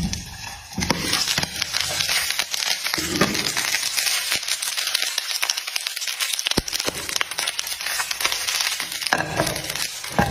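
Popcorn in a frying pan crackling and rustling as the popped corn is stirred with a spatula: a dense run of small crackles throughout.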